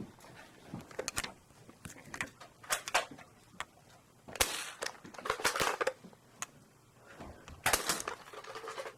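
Toy Nerf blasters being primed and fired: a scattering of sharp clicks and knocks, bunched near the middle and again near the end.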